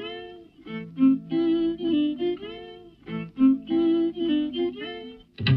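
Background music: a plucked-string melody in short repeated phrases of quick notes. A louder, fuller passage with more bass comes in near the end.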